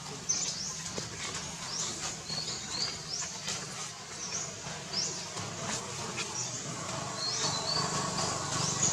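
Birds chirping: many short, high-pitched rising and falling chirps, repeating every second or so, over steady outdoor background noise.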